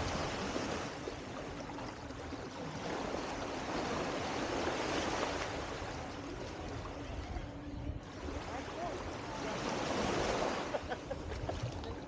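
Small waves washing up onto a sandy beach, swelling and fading every few seconds.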